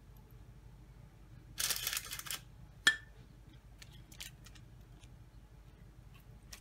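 A short rustle, then one sharp clink with a brief ring as the silicone pastry brush knocks against the glass bowl of glaze, followed by a few faint soft dabs of the brush on the dough.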